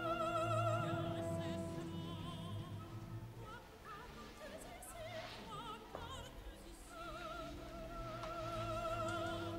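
Background operatic music: a high singing voice holds long notes with a wide vibrato over an orchestra. It is softer and broken up in the middle and swells again near the end.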